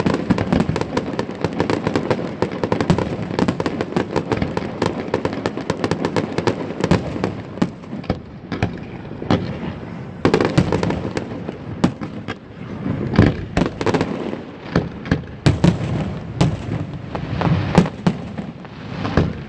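Fireworks display: a dense, continuous crackle of rapid bangs and pops, with louder single booms standing out through the second half.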